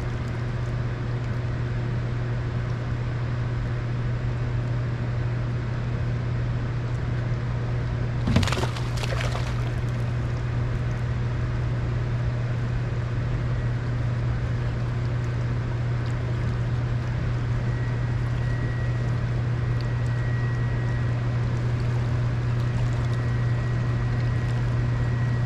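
Steady low drone of a fishing boat's motor running, with a brief sharp noise about eight seconds in.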